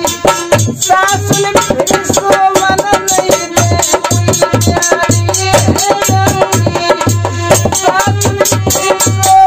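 Rajasthani folk bhajan: harmonium playing held notes over a steady dholak beat, with a man singing in places.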